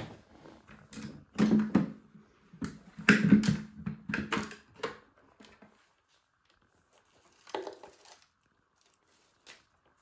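Plastic clatter and clicks as the clear dust container of a Bosch bagless vacuum cleaner is unlatched, lifted out and its lid opened, with the vacuum switched off. The handling comes in several short bursts over the first five seconds, once more about eight seconds in, and ends with a single click.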